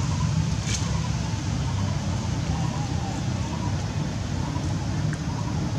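A steady low outdoor rumble with an even hiss over it, unbroken throughout, with a couple of faint clicks.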